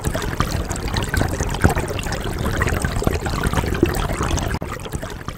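River water trickling and splashing close by, a steady rush full of small splashes, dropping off sharply near the end.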